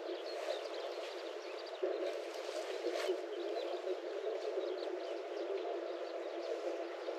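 Outdoor ambience: a steady dull hiss with small birds chirping briefly and repeatedly in the background, and one short click about three seconds in.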